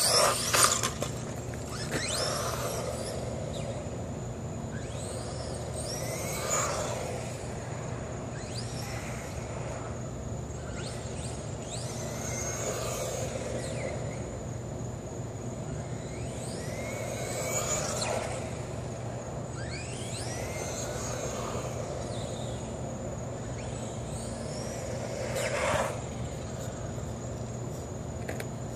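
Dromida RC buggy's brushless motor whining as it is driven around, rising and falling in pitch again and again as it speeds up and slows. It is loudest when the car passes close, right at the start and again near the end.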